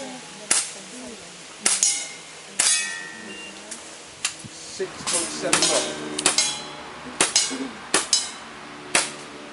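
Pistol shots at steel plate targets, each a sharp crack followed by a short metallic ring. A few shots come singly in the first three seconds, then a quicker run of them from about five to nine seconds in.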